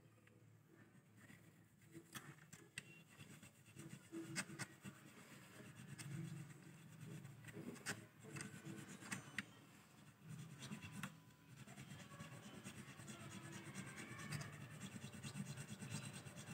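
Faint scraping of a small file worked back and forth in the string slots of a Squier bass's nut, deepening the slots to lower the action at the nut, with a few sharp ticks of metal.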